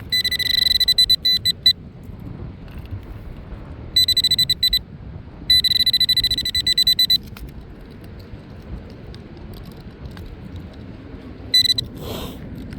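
Nokta AccuPoint metal-detecting pinpointer beeping in rapid pulsed bursts of a single high tone, sounding off over a target in the dig hole. Wind rumbles underneath.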